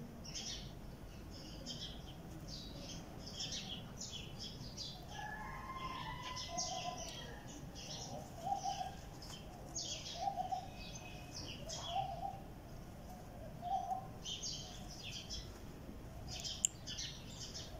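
Small birds chirping in quick high bursts throughout, with a lower short call repeating about every two seconds through the middle. A single sharp click comes near the end.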